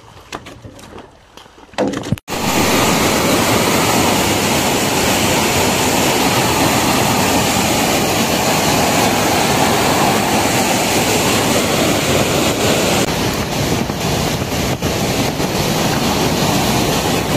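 Loud, steady rush of a fast muddy floodwater torrent, starting abruptly about two seconds in after a quiet start.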